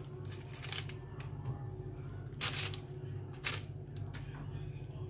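Metal kitchen tongs clicking and scraping as chicken pieces are turned in a roasting pan lined with baking paper: a few short clicks and rustles, the loudest about two and a half and three and a half seconds in, over a steady low hum.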